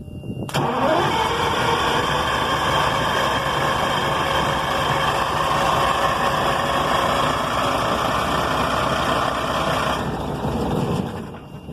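Detroit Diesel 6V92 two-stroke diesel turning over on a start attempt. It comes in suddenly about half a second in, rising in pitch as it spins up, runs loud and steady for about ten seconds, then dies away near the end. The engine is one the owner suspects has lost its fuel prime.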